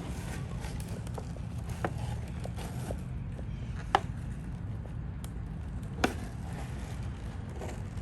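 Pet turtle's shell making sharp knocks, about one every two seconds, over a steady low rumble. The owner takes the noise for male turtle behaviour.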